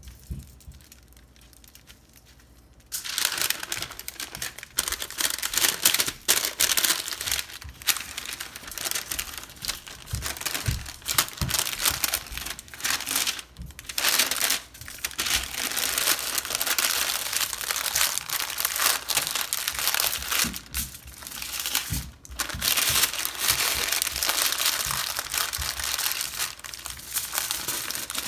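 Parchment paper and aluminium foil crinkling and rustling as a filled pita wrap is rolled up tightly in them. The crinkling starts about three seconds in and goes on with short pauses.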